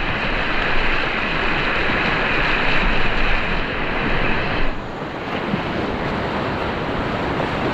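Rushing whitewater of a river rapid, a loud steady wash of water close to the microphone, turning a little duller and quieter about five seconds in.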